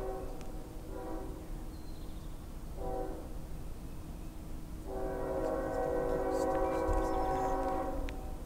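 Air horn of an approaching CSX ES44AH diesel locomotive sounding in blasts. There is a brief blast about a second in, another about three seconds in, then a long blast of about three seconds starting around five seconds in.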